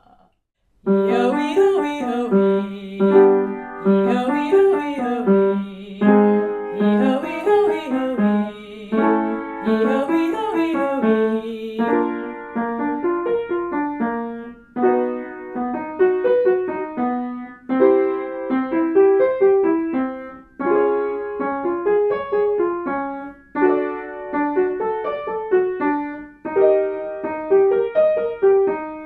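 Piano accompaniment for vocal exercises: short patterns of notes climbing up and back down, repeated over and over with brief breaks between them.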